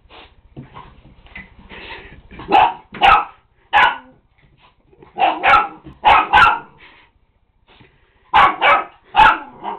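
Black Labrador-mix puppy barking at a can of compressed air, about ten sharp barks in three bursts starting about two and a half seconds in.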